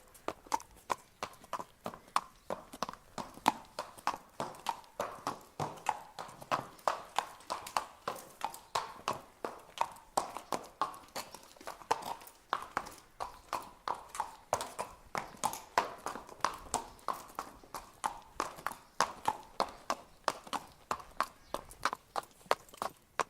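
A horse walking, its hooves striking the ground in a steady, even clip-clop of about three hoofbeats a second.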